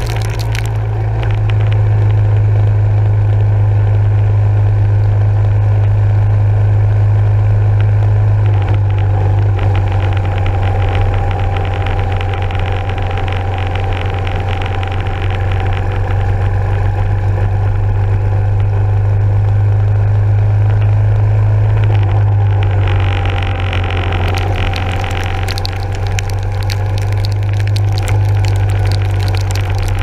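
Yamaha SR400's air-cooled single-cylinder four-stroke engine running steadily under way, recorded on a bike-mounted camera in heavy rain, with a steady hiss of rain and road spray over it. The engine note shifts a little about 9 seconds in and again about 22 seconds in.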